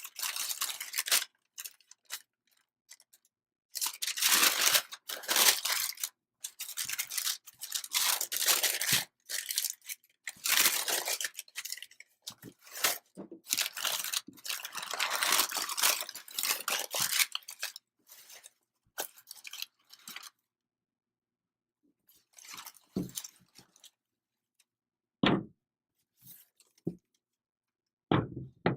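Paper crinkling and tearing in repeated bursts of handling, as a shoe box's wrapping is pulled out, then a few light knocks near the end.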